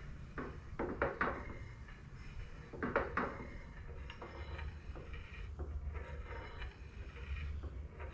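Steel driving wheels, cranks and coupling rods of a 7.25-inch gauge steam locomotive chassis being turned by hand. There are light metallic clicks and knocks from the rods and bearings, a few sharper ones in the first three seconds, over a low steady hum. The rod bearings still have quite a bit of play.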